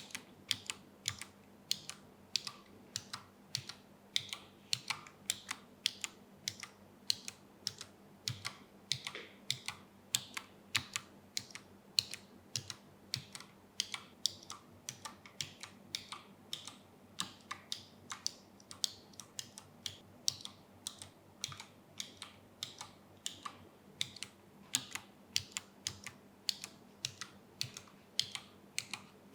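Gconic A75 low-profile 75% mechanical keyboard with Brown tactile switches being typed on: a continuous run of key clicks at a steady typing pace.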